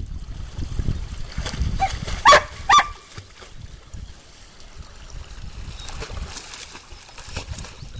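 A dog gives two short, high barks in quick succession about two seconds in, over the splashing of a Portuguese Water Dog paddling through a shallow creek.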